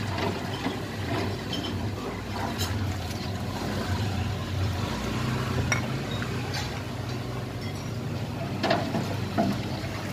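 Metal ladle clinking against a large pot and a ceramic bowl as soup broth is scooped and poured, with a few sharp clinks scattered through, over a steady low hum.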